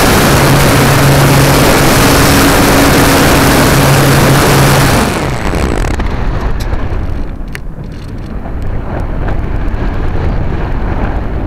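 Electric motor and propeller of a Radian powered glider running under power with a steady hum and loud air noise, cut off about five seconds in. After that the folding prop is stopped and only the rush of air past the gliding airframe remains, rising and falling, with a few faint ticks.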